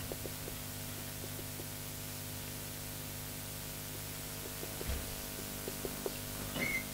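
Steady electrical hum with faint, scattered taps and scratches of a marker writing on a whiteboard.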